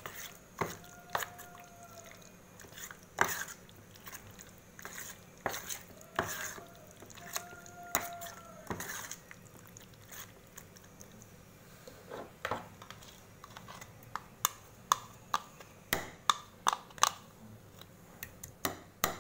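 Steel spoon stirring chicken pieces through a thick yogurt marinade in a stainless steel bowl: wet squelching with irregular clinks and scrapes of metal on metal. The clinks come quicker, about three or four a second, in the last few seconds.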